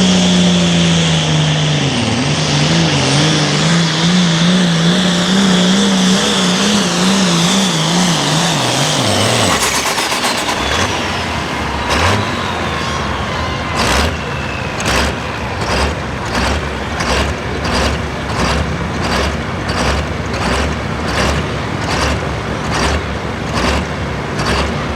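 A turbocharged diesel hot farm pulling tractor's engine runs at full throttle, its pitch wavering rapidly up and down, with a high turbo whine sliding downward. About ten seconds in the engine is pulled off and the whine falls away. After that a steady rhythmic pulsing follows, a little more than once a second.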